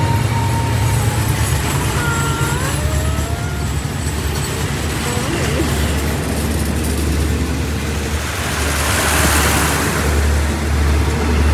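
Steady low rumble of vehicle engines, with a rush of noise that swells and fades about nine seconds in.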